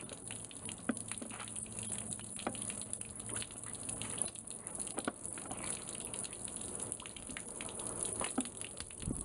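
1973 Johnson 50 hp outboard idling on a garden-hose water supply, with steady splashing and gurgling water and irregular small clicks and spatters.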